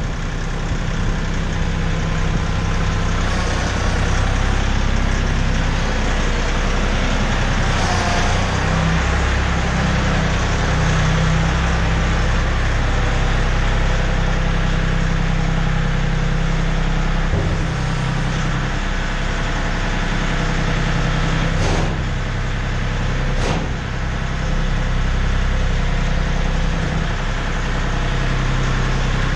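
Compact loader tractor's engine running steadily as the tractor drives slowly into a steel shipping container. Two sharp clicks come about a second and a half apart, a little past the middle.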